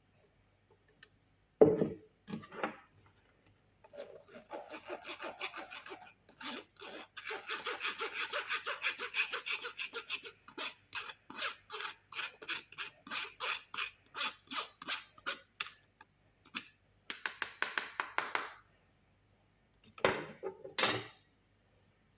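A sharp knock, then a long run of rhythmic rasping scrapes, about three strokes a second, as a kitchen utensil works against a hard surface; a couple of short clatters near the end.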